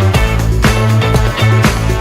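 Background music with a funky, upbeat groove: a steady bass line and drums.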